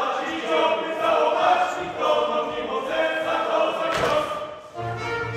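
A group of voices singing a Polish folk song in the Sącz-region style. A sharp hit comes about four seconds in, and a folk band with a low bass starts playing near the end.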